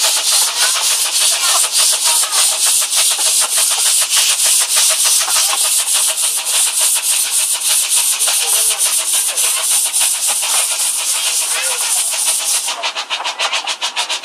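Miniature railway train running: a loud steady hiss cut by rapid, evenly spaced beats, several a second. The highest part of the hiss drops away near the end.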